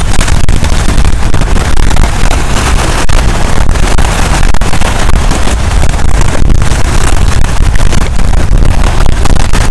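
Strong onshore wind buffeting the microphone in a loud, continuous low rumble, with waves breaking against the shore rocks under it.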